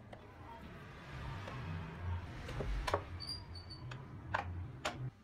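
Several sharp clicks and light knocks of small wooden model-car parts being handled and fitted, closer together in the second half, with a few brief high squeaks over a low hum.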